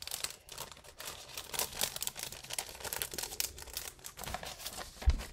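Clear cellophane packets of paper craft ephemera crinkling and rustling in the hands as they are handled, with a short low thump near the end.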